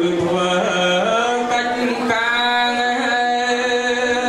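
Khmer smot, Buddhist chanted verse: a solo male voice sung into a microphone, holding long, gently wavering notes that step up in pitch about a second in.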